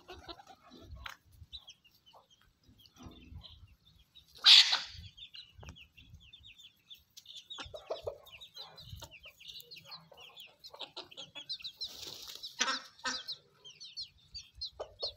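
Chickens clucking while feeding, with chicks peeping in a quick run of short rising chirps through the second half. One loud, sharp call stands out about four and a half seconds in.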